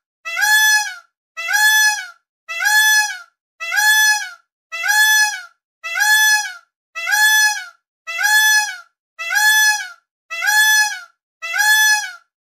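Peacock calling: the same short call repeated over and over at an even pace, a little more than once a second.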